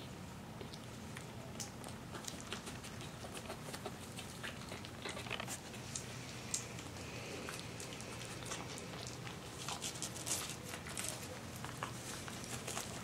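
Almost three-week-old Maltese–Shih Tzu puppies scrambling on fleece bedding: soft scratching and pattering of small paws, with a few faint puppy squeaks, over a low steady hum.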